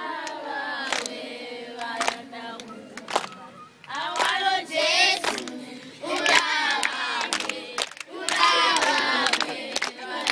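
Group of children singing together while clapping their hands, the singing coming in loud phrases with short breaks between them and irregular claps throughout.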